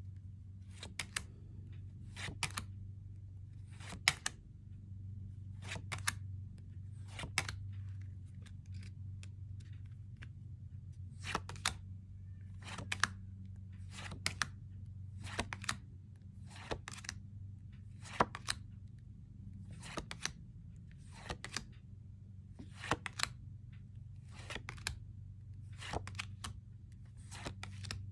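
Tarot cards being flipped and laid down one at a time: a sharp card snap about every second or so, over a steady low hum.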